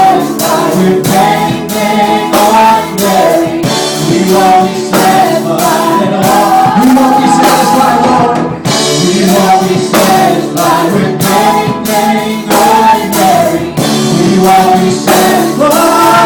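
Church worship team singing a gospel song over a live band, with a steady beat.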